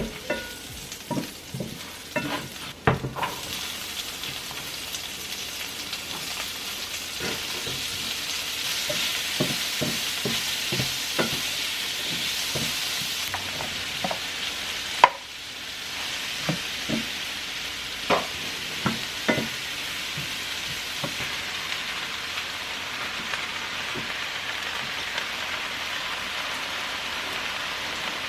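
Food sizzling in a hot frying pan while a utensil is stirred through it, clicking and knocking against the pan; one sharp knock about halfway through, then the taps thin out to a steady sizzle.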